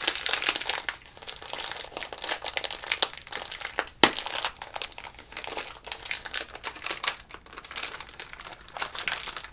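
Crinkly blind-bag packaging, foil or plastic, rustling and crackling continuously as it is handled, with one sharp click about four seconds in.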